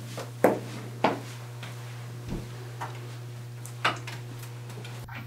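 A few sharp clicks and knocks at irregular intervals, the loudest about half a second and a second in, with a low thump midway, over a steady low electrical hum.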